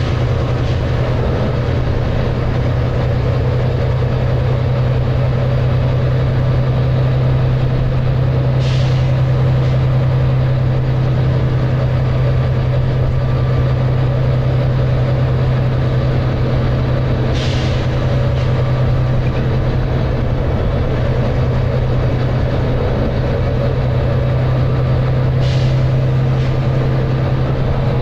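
Volvo B9TL double-decker bus heard from inside, its six-cylinder diesel engine running hard at a steady pitch while cruising. Short hisses of air from the bus's air system come three times, about every eight to nine seconds.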